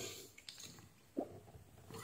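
Quiet handling noise of a test lead and tool being placed on a circuit board, with one short soft click about a second in.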